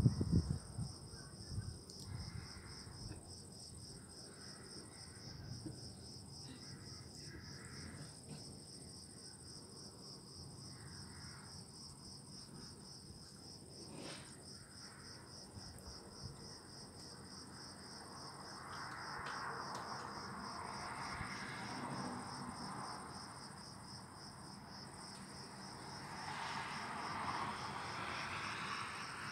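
Thunder rumbles and dies away in the first second or two, then crickets chirp in a steady, pulsing trill. A soft hiss swells twice, about two-thirds of the way through and near the end.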